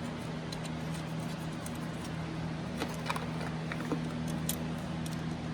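A few light metallic clicks and taps from small fuse-holder hardware being handled and fitted, over a steady electrical hum.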